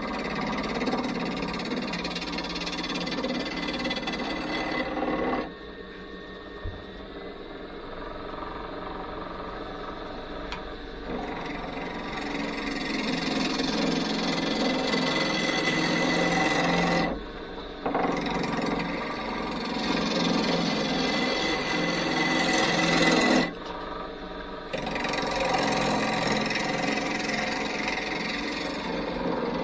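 A turning tool cutting a spinning hardwood blank on a wood lathe, roughing it toward round: a rough, scraping rush in several passes. Between them are short, quieter stretches where the lathe spins without the tool on the wood.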